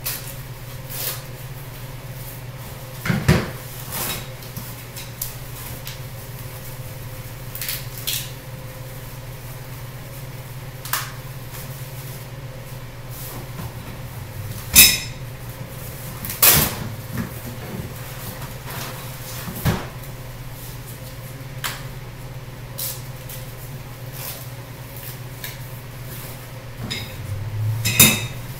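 Sofa parts and packing material being taken out of a shipping box by hand: scattered knocks, clunks and rustles, the sharpest about halfway through and just before the end, over a steady low hum.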